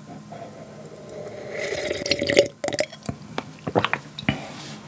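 Water being gulped straight from a glass pitcher, with a run of sharp swallowing clicks, drunk to cool the mouth after very spicy noodles.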